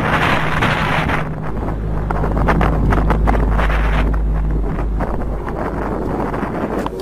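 Wind buffeting the microphone, over a low steady drone that swells about a second and a half in.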